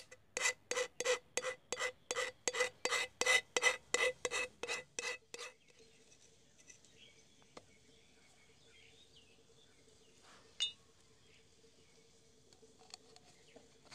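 A wooden stick scraped repeatedly across the top of an empty aluminium drink can, about three rasping strokes a second for some five seconds, each ringing through the can, then stopping. One short sharp click follows about ten seconds in.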